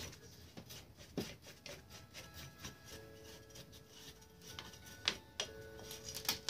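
Faint scraping and clicking of a small hand tool cleaning crud off a Honda ATV's front drum brake parts, with a few sharper metallic ticks. A faint steady hum comes in about halfway.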